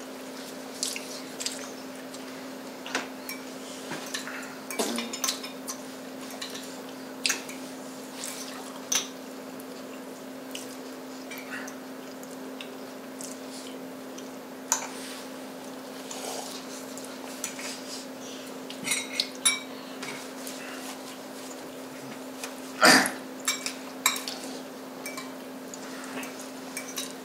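Metal forks and spoons clinking and scraping against ceramic plates and bowls as people eat, in scattered short clicks over a steady low hum, with one louder knock near the end.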